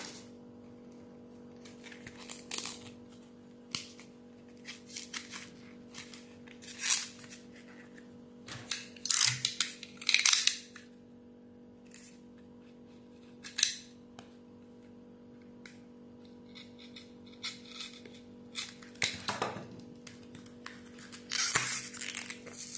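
Paper and packing tape rustling and scraping in short irregular bursts as a small paper-wrapped parcel is cut open with a small blade, over a faint steady hum. A cluster of louder rustles comes about ten seconds in.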